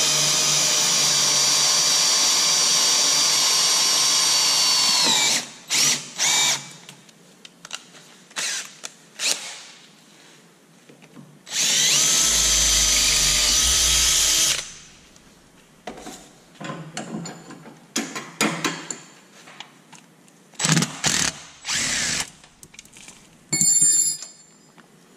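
DeWalt 20V MAX cordless drill boring a quarter-inch hole through a steel flat-stock plate. The first run lasts about five seconds, its pitch sagging just before it stops. A couple of quick blips follow, then a second run of about three seconds about twelve seconds in. Scattered knocks and handling clicks fill the rest.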